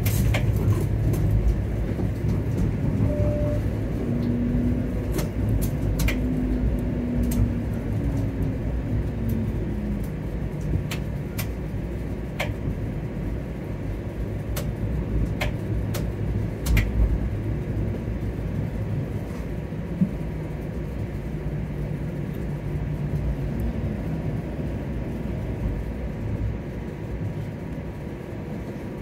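Streetcar running along its tracks, heard from on board: a steady low rumble with a faint motor whine that rises and falls in pitch, and scattered clicks and knocks from the wheels and car body.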